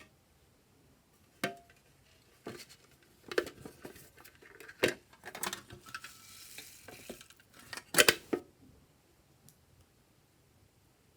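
Glossy slime being stirred and mixed by hand, giving irregular wet clicks and pops between quiet gaps, with the loudest pops about eight seconds in.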